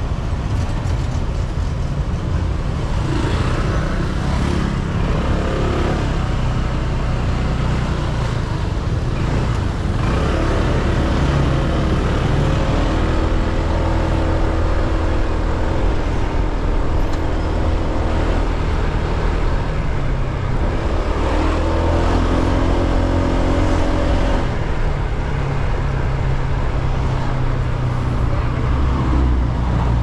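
Motor scooter engine running on the move, its pitch rising and falling several times with the throttle, over a steady low rumble of road and wind noise.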